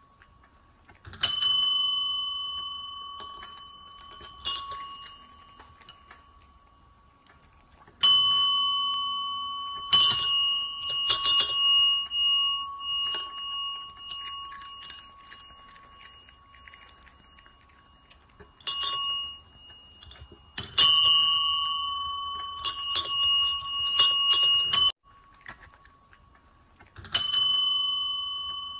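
Two chrome desk service bells struck about ten times by the cats' paws. Each ding rings out and fades, sometimes with two or three strikes in quick succession, and the two bells are slightly different in pitch.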